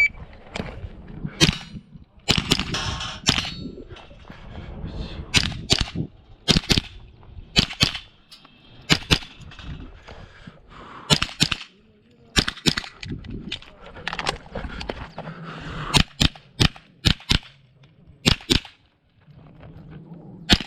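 Smith & Wesson M&P 15-22 semi-automatic .22 LR rifle firing, in quick clusters of shots with short irregular pauses between them.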